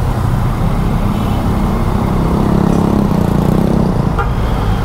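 Yamaha XSR 900's three-cylinder engine running steadily while riding, heard from the rider's own microphone along with rushing wind and road noise.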